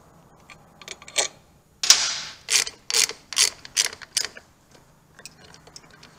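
Hand ratchet with a 1/4-inch Allen socket loosening the mounting bolts of a Harley-Davidson Sportster's rear brake master cylinder. A few light clicks, then a run of six ratcheting strokes about two a second, the first one longer.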